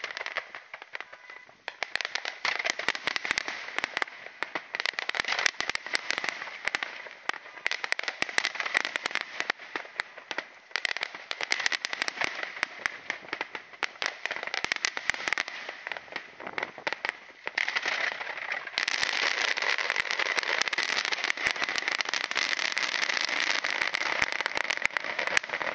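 Fireworks crackling: a dense, unbroken run of small pops and crackles, which thickens into a steadier, louder crackle about three-quarters of the way through.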